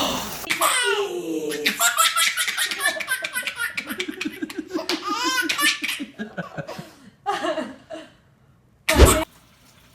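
A baby laughing hard in long runs of quick belly-laugh pulses that die away about eight seconds in, then a short, loud thump near the end.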